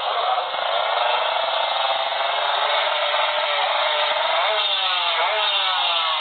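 Drag-racing motorcycle engines running at high revs with a buzzing, chainsaw-like note. Near the end the pitch drops several times in succession.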